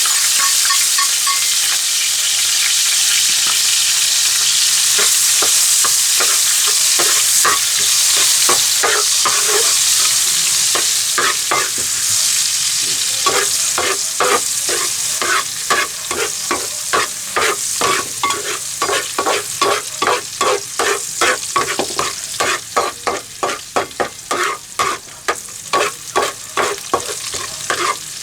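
Food sizzling in hot oil in a pan, a loud steady hiss; from about halfway through, a spatula scrapes and stirs the pan in regular strokes about two a second.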